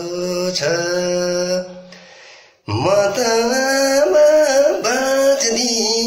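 A man singing a Nepali song unaccompanied in a small room: a held note fades out about two seconds in, a brief pause follows, then he resumes singing.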